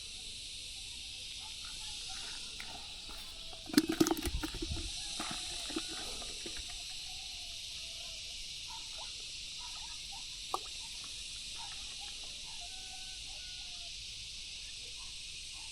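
Steady high insect chorus, with a short burst of knocks and thumps about four seconds in and a single sharp click later on.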